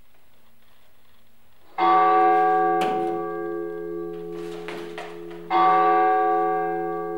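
Large church bell tolling twice, about four seconds apart, each stroke ringing on and dying away slowly.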